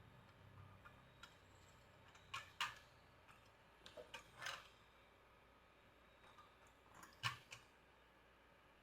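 Near silence with a few faint clicks and taps of hand soldering on a circuit board, coming in pairs about two and a half, four and a half and seven and a half seconds in.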